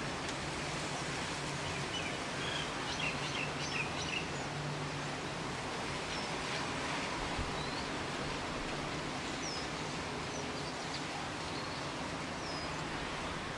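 Light drizzle falling steadily, an even soft hiss of rain, with birds chirping briefly now and then, a cluster of chirps a few seconds in and a few more later on.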